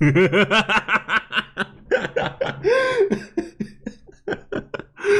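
A man laughing hard in a long run of rapid 'ha' bursts, strongest in the first three seconds and tailing off into shorter, weaker pulses near the end.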